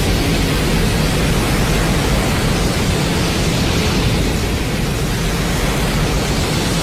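Burning Godzilla sound effect: a loud, steady rushing roar of noise over a deep rumble, with no breaks.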